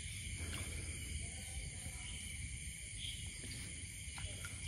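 Steady night chorus of crickets and other insects, several high tones held throughout, with a few faint ticks.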